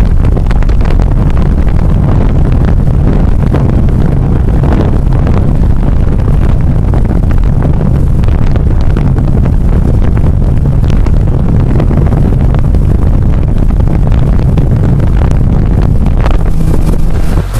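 Loud, steady wind buffeting the camera microphone on a moving boat at sea, a low rumbling rush with no let-up.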